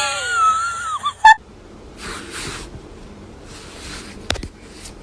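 A cat's drawn-out meow, bending down in pitch, lasting about a second. It is followed by a sharp loud click and then softer rustling with another click near the end.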